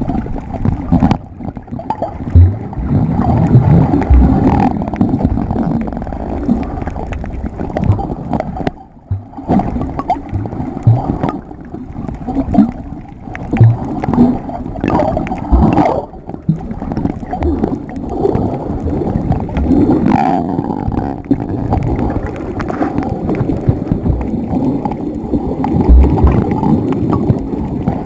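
Muffled water sound picked up by a camera held underwater: a steady gurgling rush of moving water, broken by occasional short low thumps.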